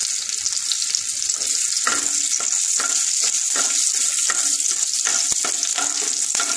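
Panch phoron seeds and two green chillies sizzling in hot mustard oil: the tempering stage. It makes a steady high hiss dotted with many small crackles, and a wooden spatula stirs them through the oil in a nonstick kadai.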